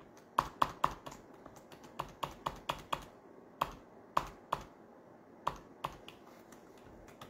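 Computer keys clicking: about fifteen sharp, irregular presses, several in quick runs in the first three seconds, then single presses spaced out.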